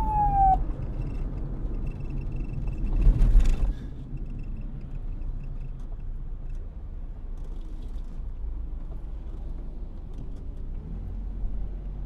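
Police siren ending on a falling wail just after the start, then a low steady rumble with a brief louder burst of noise about three seconds in.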